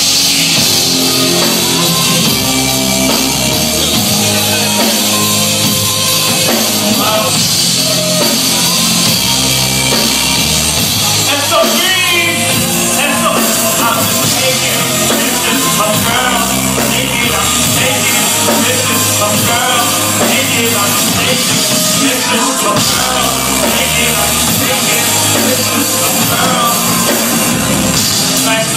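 Loud, steady rock-style band music with vocals.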